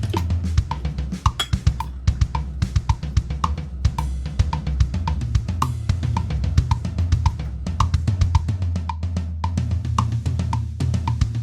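Background music: a drum-kit beat with a steady bass line and short repeating high notes.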